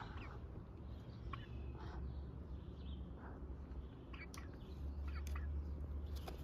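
Red domestic hens clucking and giving short, soft calls off and on, with a few sharp clicks in the second half.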